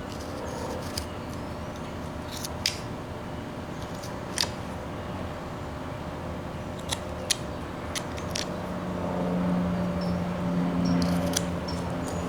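A carving knife slicing into wood, giving short, sharp clicks at irregular intervals, about six in all. A low steady hum comes in after about eight seconds.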